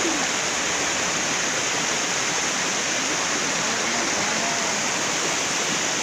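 Shallow, rocky river rushing steadily over boulders in small rapids.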